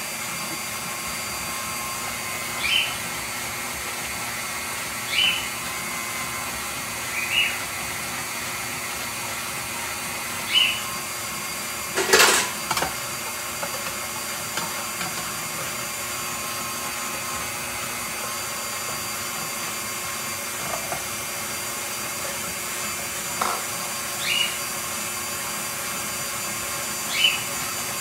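KitchenAid stand mixer running steadily with its slicer/shredder attachment, slicing green plantains into chips. Short high-pitched scrapes come every few seconds as the plantain is pressed against the spinning cone, with one sharp knock about twelve seconds in.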